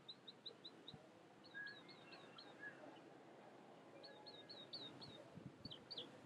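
Faint bird chirping: quick runs of four or five short, high chirps, repeated about four times, over a near-silent background.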